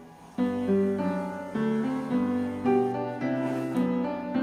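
Background piano music: a run of held notes, a new one about every half second, starting about half a second in.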